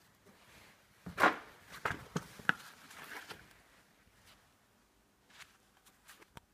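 Irregular knocks and clatter of hard parts being handled: a cluster of sharp knocks in the first half, the loudest about a second in, then a few lighter clicks near the end.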